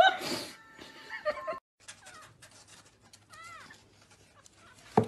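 A cat's loud, harsh meow at the start and a few short cat calls about a second in. Then come a kitten's high, thin mews that rise and fall, and a sharp knock near the end.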